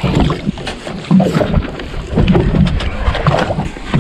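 Wind buffeting the microphone and water slapping against the hull of a small boat on open water, an uneven low rumble with scattered knocks.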